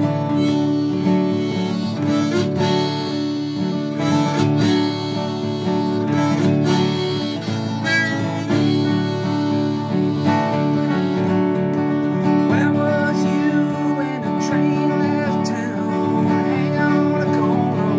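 An old Washburn acoustic guitar flatpicked in bluegrass style, with a harmonica in a neck rack holding long chords over the picking.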